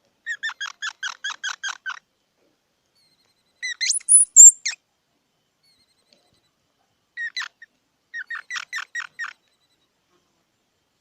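Squirrel chattering in rapid alarm calls: a run of about eight quick, sharp chirps, a louder high squeal that rises in pitch about four seconds in, then two more chirps and another run of about seven chirps.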